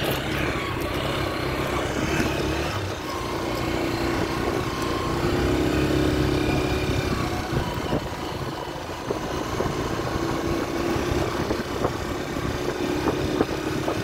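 A motor vehicle's engine running steadily, a continuous drone whose pitch rises and falls slowly, with low rumble and a few scattered clicks.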